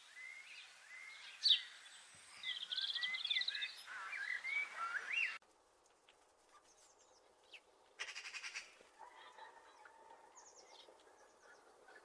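Birds calling and chirping, with many short chirps and gliding whistles; about five seconds in the sound cuts abruptly to quieter background with a short rattling call about eight seconds in.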